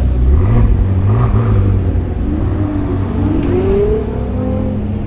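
Sports car engines running as the cars pull away, with the engine note climbing steadily under acceleration in the second half.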